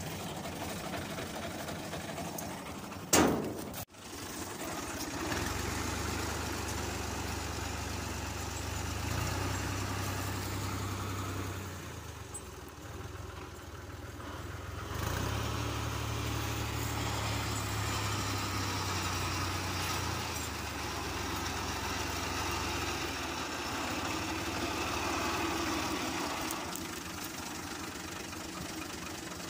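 Tractor diesel engine running steadily at idle, with a single sharp loud knock about three seconds in and a brief dip in level around twelve seconds in.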